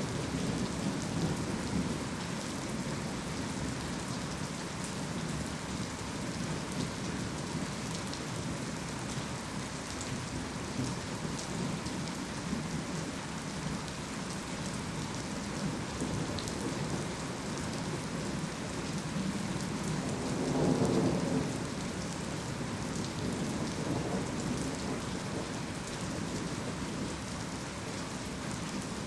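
Heavy rain falling steadily, with rolls of thunder rumbling underneath; one louder roll of thunder swells and fades about two-thirds of the way through.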